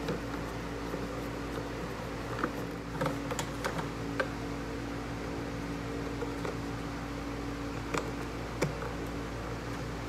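Light plastic clicks and taps as a car headlight assembly is handled and wiring connectors are pushed into its HID ballast, a few around three to four seconds in and more near the eight-second mark, over a steady hum.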